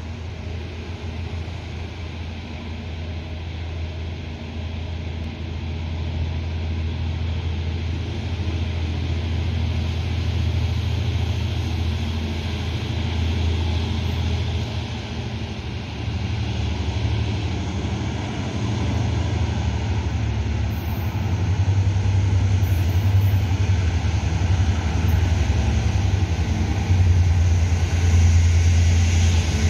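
Low, steady rumble of an approaching Taiwan Railway diesel locomotive's engine, growing slowly louder as the train draws nearer.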